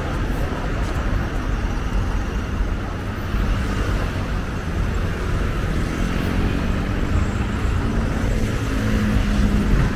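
Steady road traffic noise from cars passing on a busy multi-lane road. A low engine hum from a heavier vehicle comes in over the second half.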